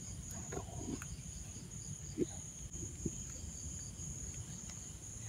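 Steady, high-pitched trill of crickets or other insects, with a few faint short taps and rustles about one, two and three seconds in.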